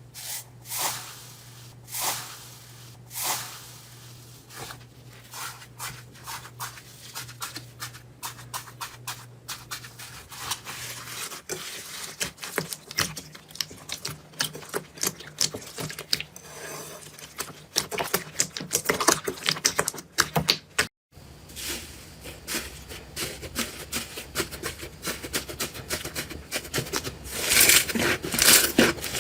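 Slime being squeezed, poked and pressed by hand, making a dense run of small sticky clicks and crackles, with a few louder squelches in the first few seconds and a busier stretch near the end. The sound breaks off briefly about two-thirds in.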